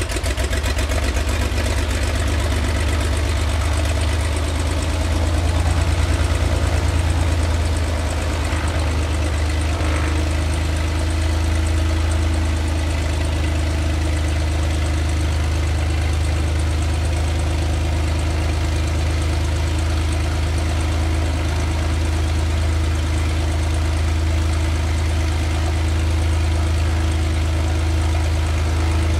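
Cessna 182RG Skylane's six-cylinder Lycoming O-540 piston engine idling with the propeller turning, just after start-up. It eases back slightly about eight seconds in, then runs steadily.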